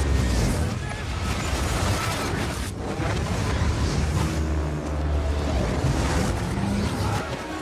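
Action-film sound mix: a continuous dense roar of engines, fire and explosion rumble, with a heavy low rumble and faint held tones underneath.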